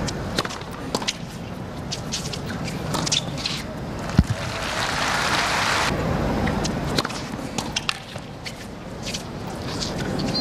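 Tennis stadium crowd noise, with applause swelling from about three and a half seconds in and cutting off abruptly about two seconds later. Scattered sharp clicks and one louder knock in the middle of the applause.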